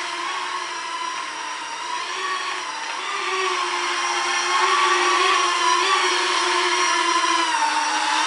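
Small quadcopter drone's electric motors and propellers whining as it hovers and manoeuvres, the pitch wavering up and down with the throttle. It grows louder about halfway through, and the pitch dips briefly near the end.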